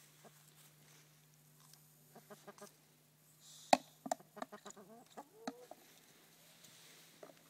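Chickens clucking in short calls, most of them in the second half, with a sharp knock just past halfway that is the loudest sound.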